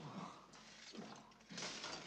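A man's heavy, gasping breaths with short grunts, about one a second, as he drags himself up from the floor exhausted after a fight.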